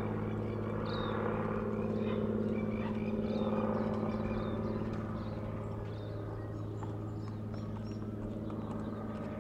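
A steady low motor hum, like an engine running, with small birds chirping over it in the first half.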